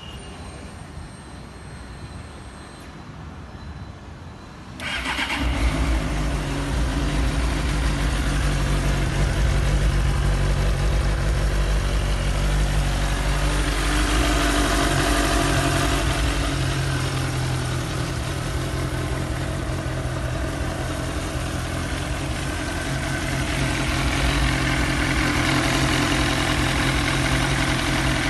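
Suzuki GSR 600 inline-four motorcycle engine on its stock exhaust, started about five seconds in and then idling steadily, with small shifts in tone.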